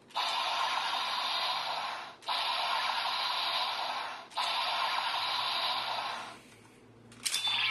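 Electronic transformation toy playing a sound effect through its small speaker: three rushing, static-like noise bursts of about two seconds each, one after another. A sharp onset near the end leads into a tinny electronic tune.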